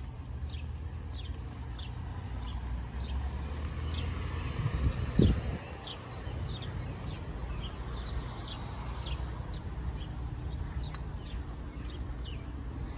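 A bird chirping over and over, short high notes that drop in pitch, two or three a second, over a low steady rumble. A dull thump about five seconds in is the loudest sound.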